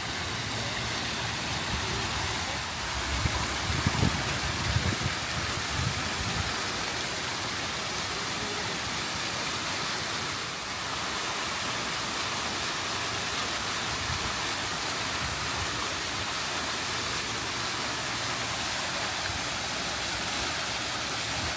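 Steady rush of splashing water from a large outdoor fountain, with a few low thumps about three to five seconds in.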